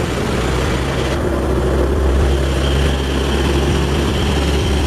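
A motor running steadily, a strong low hum under a hiss.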